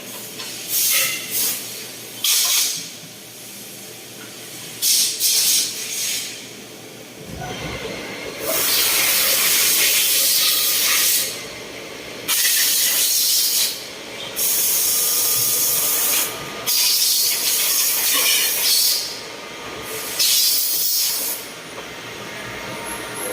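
Repeated bursts of loud hissing from CNC machining equipment in a shock-absorber factory. A few short blasts come first, then longer blasts of one to three seconds each, separated by brief pauses.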